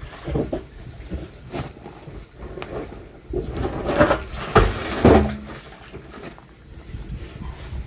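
Plastic drum being scrubbed and handled, with scattered knocks and rubbing on the plastic, then a louder cluster of thumps and scraping about four to five seconds in as the drum is tipped upright.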